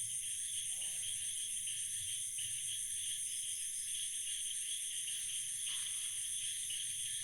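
Night chorus of insects: a steady, high-pitched trilling with a lower layer of chirping that pulses on and off beneath it.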